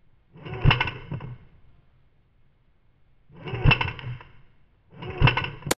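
The same airsoft rifle shot heard three times in a row, each a sharp report that swells and fades over about a second. A short sharp click comes near the end.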